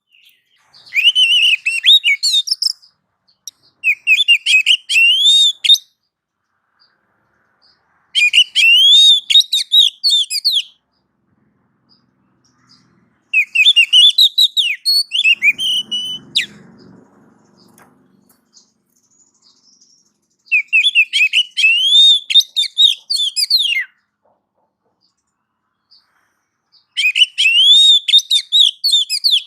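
Oriental magpie-robin (kacer) singing in six bursts of rapid, varied whistled phrases, each two to three seconds long, with short pauses between them.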